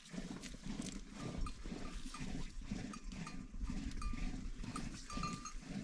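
A flock of sheep around the shelter, with many overlapping low calls and the short clinking notes of neck bells several times.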